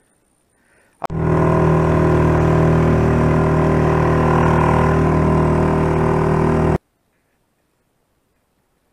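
Small outboard motor running at a steady speed, starting with a click about a second in and cutting off abruptly nearly six seconds later.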